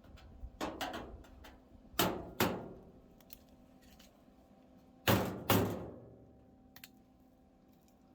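Hammer striking the car's steel body in two pairs of heavy blows, each blow ringing briefly, with a few lighter taps before them.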